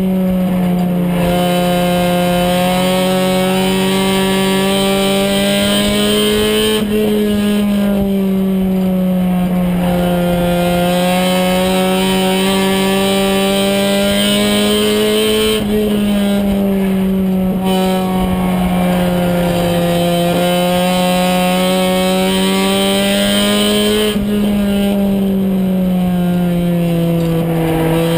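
Race car engine heard from inside the cockpit, running steadily at high revs. Its pitch slowly falls and rises again about every eight seconds.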